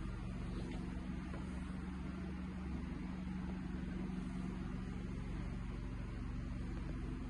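A steady low mechanical hum that holds unchanged throughout, with no separate events.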